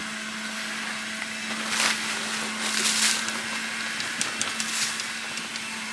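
Grass clippings rustling and crunching as the lawn mower's collection bag is shaken out, in several separate bursts with small clicks between them. A steady low hum runs underneath.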